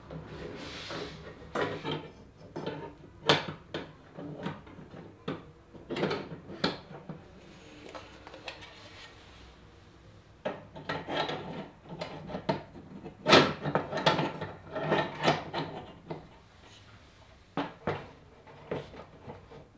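Irregular knocks, clinks and rustles of a metal wire rack being handled and fitted onto a wire grid wall panel, with things being set down on a wooden desk. One sharper knock comes a little past the middle.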